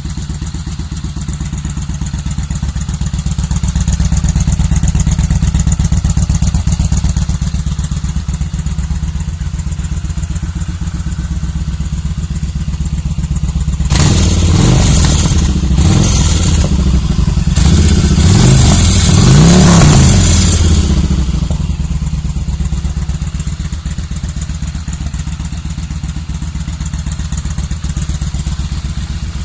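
Kawasaki VN1500 Vulcan V-twin motorcycle engine running on its first start after a rebuild: it idles with a low rumble, is revved up and down several times about halfway through, then settles back to idle.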